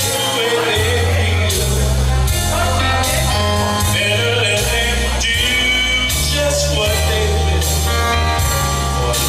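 A song playing: a singing voice over held bass notes and a regular drum beat.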